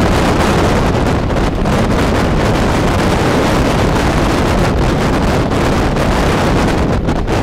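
Steady wind buffeting the microphone at the window of a moving train, over the train's running rumble.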